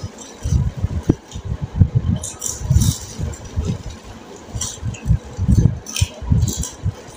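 Plastic snack packets crinkling and rustling as they are handled and opened, among irregular low thumps and bumps.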